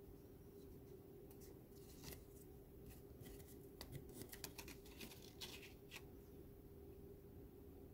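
Faint rustles and light taps of thin Kent-paper strips being handled, lifted and slid on a tabletop sheet, scattered and irregular, over a faint steady hum.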